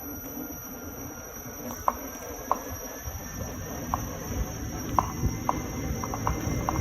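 Gotway MSuper V3 electric unicycle giving short, irregular knocks, more frequent in the second half, over a steady low rumble: the knocking the owner traced to a bearing.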